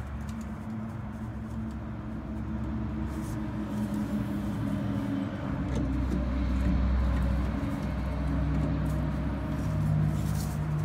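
A steady low mechanical hum, its pitch shifting a few times and growing louder about halfway through, with a few light clicks of an Allen key on a chrome steering column.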